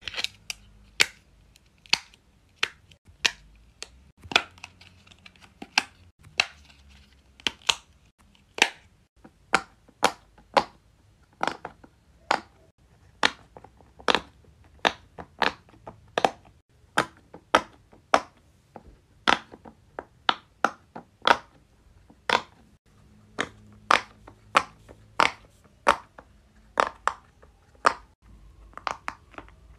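Silicone push-pop fidget toys (a simple dimple and pop-its) being pressed one bubble at a time: a string of sharp, separate pops, about two a second.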